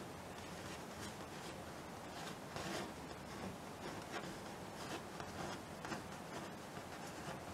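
Faint brush strokes on a stretched canvas: a thin paintbrush drawn in short upward strokes, several in a row, each a soft scratch of bristles on canvas.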